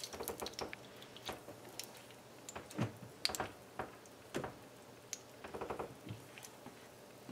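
Faint, scattered crackles and pops of whole cloves in hot melted ghee in a nonstick frying pan, with a silicone spatula now and then moving them through the fat.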